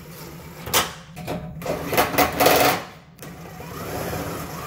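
Handheld power tool running the new heat shield bolts into their holes in short runs: a brief burst about a second in, then a longer run of about a second and a half, then a quieter stretch. A steady low hum sits underneath.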